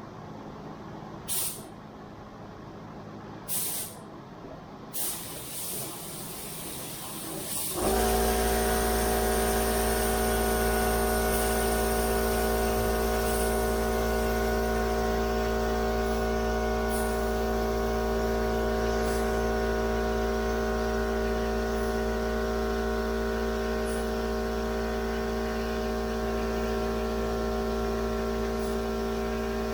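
A few short hisses of spray-gun air, then about eight seconds in an air compressor starts up abruptly and runs steadily with a strong hum and whine.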